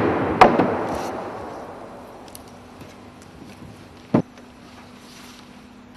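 A mallet knocks once just after the start, and the sound dies away over a second or two. After that comes a faint steady low hum, with one short dull thud about four seconds in.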